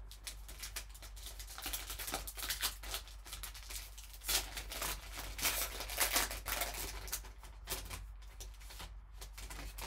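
Foil trading-card pack wrapper being torn open and crinkled by gloved hands: a dense run of crackles and rips, loudest around the middle.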